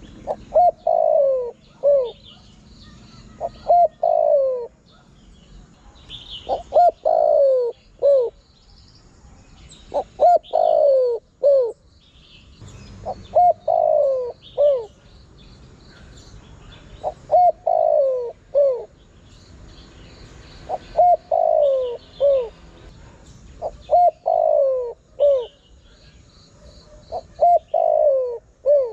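Spotted dove cooing: a phrase of a few short coos and one longer falling coo, repeated about every three to four seconds, nine times or so, as a lure call for wild doves. Faint high chirps of small birds sound between the phrases.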